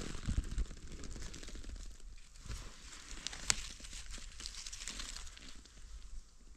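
Dry leaf litter rustling and crackling as a wild mushroom is pulled from the forest floor and its stem trimmed with a knife, with many small clicks and one sharper click about three and a half seconds in.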